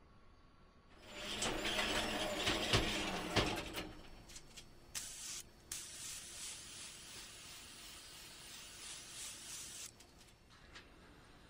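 Aerosol can of Deft clear gloss wood finish: a rattling shake with sharp clicks, then about six seconds of spraying as a steady hiss. The hiss breaks off twice briefly near the start and then stops.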